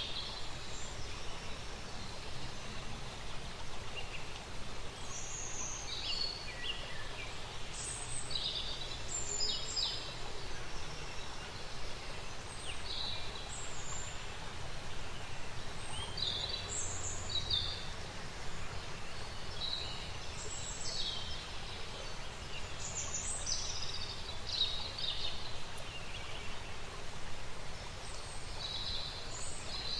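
Outdoor nature ambience: birds chirping and calling in short, scattered notes over a steady background hiss.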